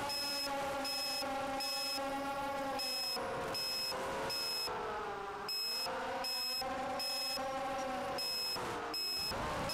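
Racing quadcopter's four Emax 2204 2300kv brushless motors spinning Gemfan 5045 props, a steady whine heard from the onboard camera, sagging and rising in pitch with throttle about halfway through and again near the end. A high electronic beep pulses on and off repeatedly over it.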